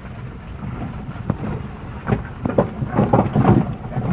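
A vehicle engine running while travelling over a broken, muddy road, with a steady low hum and, from about halfway through, a run of knocks and rattles that get louder.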